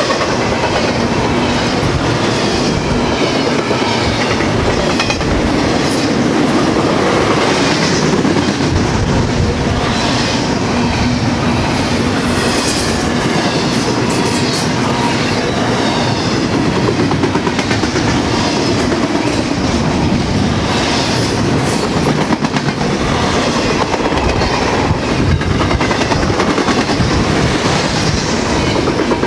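BNSF train rolling past: a steady rumble of passing cars, with a repeated clickety-clack of steel wheels over the rail joints.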